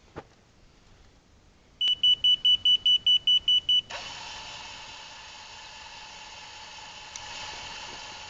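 Electric gate opener: a click, then a rapid run of about ten high beeps over two seconds, then its actuator motor starts and runs with a steady whine. The beeps are the opener's warning before it moves, and the motor running shows the mended wiring connection now works.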